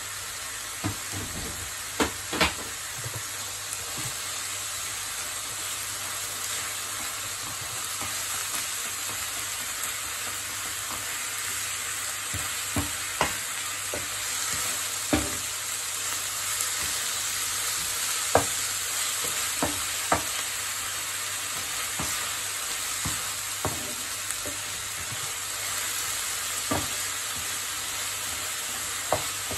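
Minced meat and onions sizzling in a frying pan, stirred with a wooden spatula that knocks against the pan now and then, irregularly, over a steady frying hiss.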